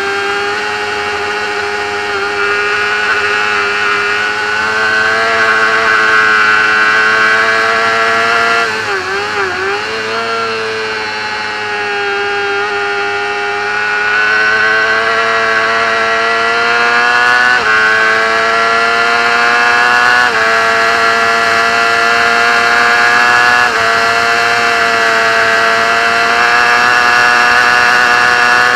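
Racing motorcycle engine at high revs under hard riding, heard from the bike itself. The note holds high with slow rises and falls, wavers down briefly about nine seconds in, and jumps in pitch suddenly a few times in the second half.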